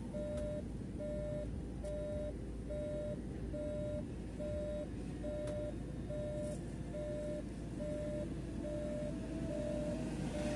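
Bus turn-signal indicator beeping in a steady, even pulse, about three beeps every two seconds, over the low running rumble of the bus.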